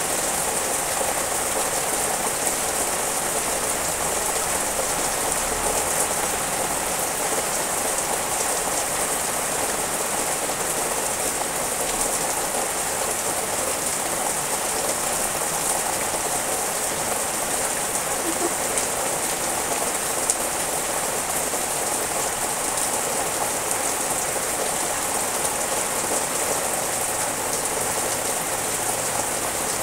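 Steady rain falling on leafy trees and garden plants, an even, unbroken hiss, with one brief tick about two-thirds of the way through.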